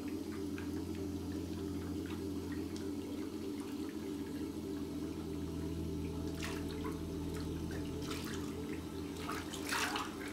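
Water from a bathroom sink tap, with several splashes in the second half as hands scoop water to the face, the loudest near the end. Under it runs a steady low hum.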